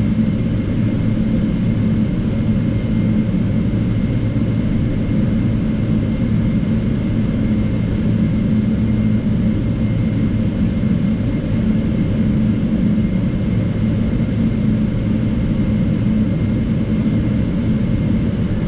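Steady low rumble of a Boeing 777-300ER standing at the gate, heard inside the cabin, with a faint steady whine running through it.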